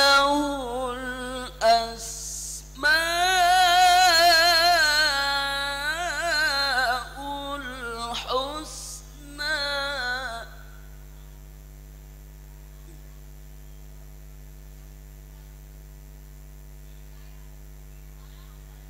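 Melodic Qur'an recitation by a single voice, sung in long wavering, ornamented phrases. It stops abruptly about ten seconds in, leaving a steady electrical mains hum.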